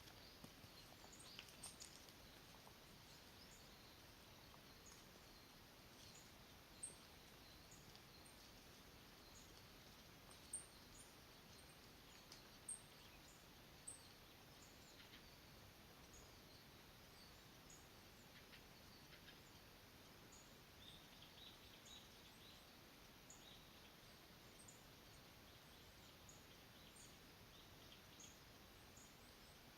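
Near silence outdoors: a faint steady hiss with scattered faint, high bird chirps and a few brief soft ticks.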